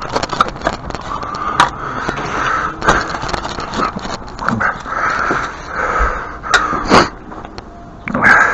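A hand tool digging at dirt and brick: repeated scraping with many sharp knocks scattered through.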